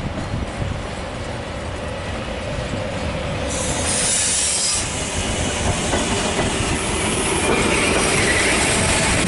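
Trenitalia regional train of double-deck coaches rolling past, getting louder as it comes closer, with wheel clatter over the rails. There is a short high hiss about four seconds in and a wheel squeal near the end.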